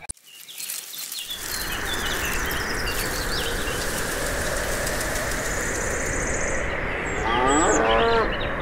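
A cow moos for about a second near the end, over a steady hiss that fades in after a brief silence at the start. Short high chirps are scattered through the hiss.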